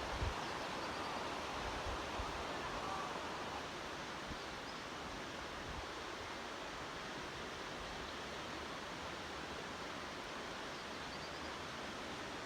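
Steady outdoor ambience: an even, rushing natural hiss. There is a little low wind rumble on the microphone in the first moments.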